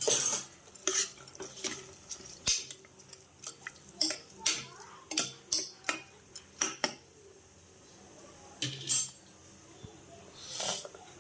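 Metal kitchen utensils clinking and knocking against pots and dishes: a quick run of sharp clinks through the first seven seconds, then a few scattered knocks near the end.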